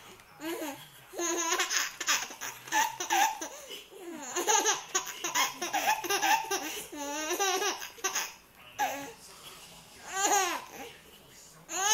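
A baby laughing hard in repeated fits of high-pitched giggles, with a couple of short pauses for breath.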